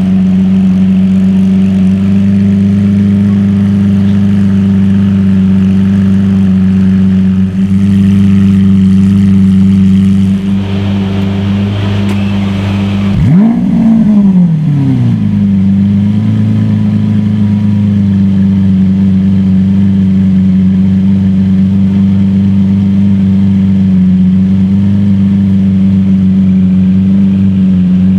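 Lamborghini supercar engine idling steadily. About halfway through it gives one sharp rev, the pitch shooting up and then falling away over a couple of seconds.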